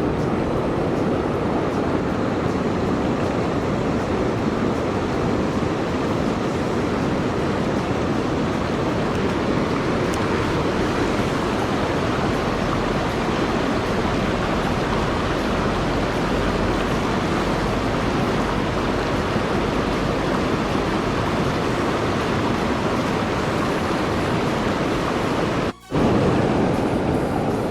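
Steady rush of fast-flowing river water, even and unbroken except for a brief dropout about 26 seconds in.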